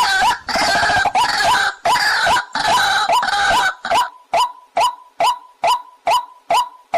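Waterhen calling: a dense run of rapid, overlapping croaking notes that about four seconds in settles into a steady, even series of short single notes, about two and a half a second.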